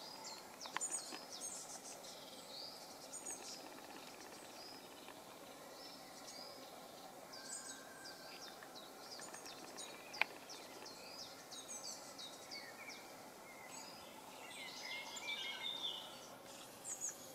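Small birds chirping and calling faintly over a steady outdoor hiss, the calls scattered throughout and busier near the end. A single sharp click sounds about ten seconds in.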